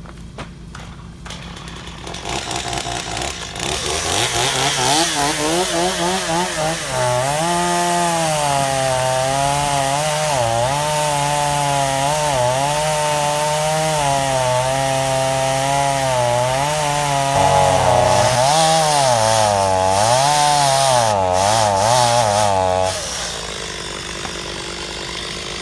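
Older Stihl MS250 two-stroke chainsaw revving up and cutting into a pine trunk, its pitch sagging and recovering again and again as the chain bites into the wood. The throttle is released near the end and the saw drops back to a low steady running sound.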